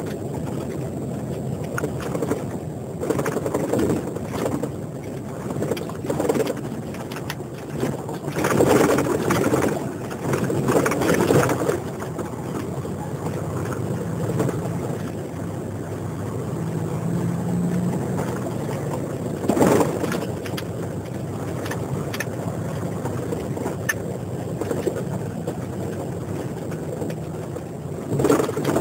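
Engine and road noise of a moving vehicle heard from inside the cabin, a steady low rumble with louder surges a few times.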